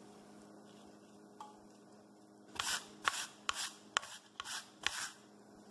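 White radish (daikon) rubbed down a coarse stainless-steel grater, shredding it into thick strips: a quiet stretch, then a run of about six scraping strokes, roughly two a second, starting a little past halfway in.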